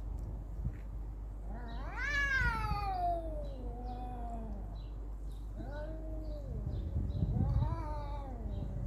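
Cats yowling in a fight standoff: one long drawn-out yowl that rises and then slides down in pitch, followed by two shorter yowls.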